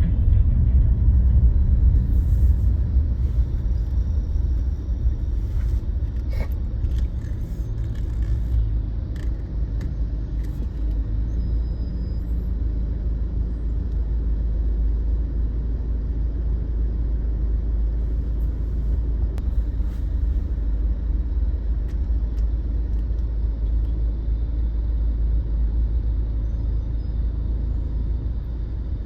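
A car driving, heard from inside the cabin: a steady low rumble of engine and road, with a few faint clicks in the first ten seconds.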